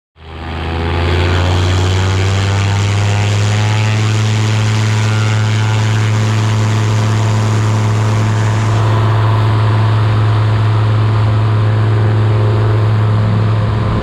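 Bushcat light aircraft's piston engine and propeller running loud and steady at a constant pitch; the sound cuts in suddenly just after the start.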